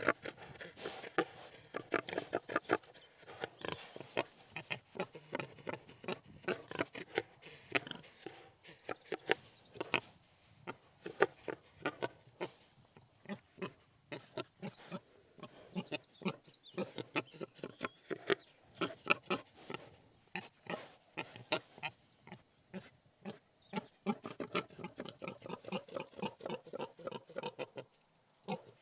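Pigs grunting and oinking, a steady stream of short grunts one after another with brief pauses.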